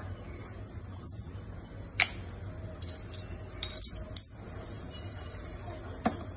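Sharp metallic clicks and jingling clinks from metal tools and parts being handled during the repair: a single click about two seconds in, then two quick clusters of clinks, and one more click near the end.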